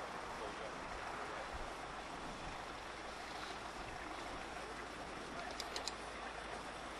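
Steady low running noise of a slowly approaching narrow-gauge train, the locomotive being towed rather than running under its own steam. A few quick high-pitched ticks come about five and a half seconds in.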